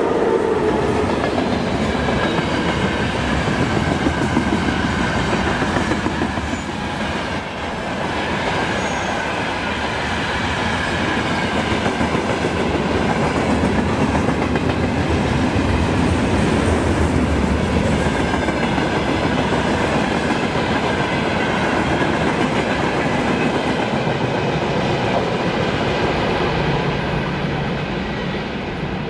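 Freight train of open gondola wagons and flatcars rolling past at speed, wheels clattering steadily over the rails. The sound eases off near the end as the last wagon goes by and draws away.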